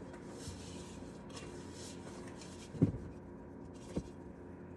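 Hands rubbing and squeezing a crumbly flour, brown sugar and butter topping in a stainless steel mixing bowl, a soft gritty rustling that comes and goes. A thump a little under three seconds in and a lighter tap about a second later.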